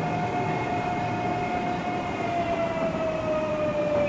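Toyo Denki GTO VVVF inverter whine of a Tokyo Metro 05 series train, a single tone with fainter overtones that slowly falls in pitch as the train slows, over the rumble of the wheels on the rails.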